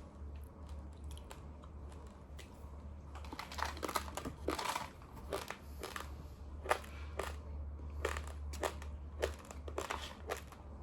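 A person chewing a mouthful of uncooked long-grain Daawat Rozana rice, the dry grains giving irregular sharp crunches, sparse at first and coming thicker from about three seconds in. A steady low hum runs underneath.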